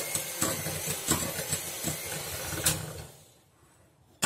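Electric hand mixer running on low speed, beating cake batter in a bowl, with the beaters knocking against the bowl now and then. It stops with a click a little under three seconds in, and the batter is ready.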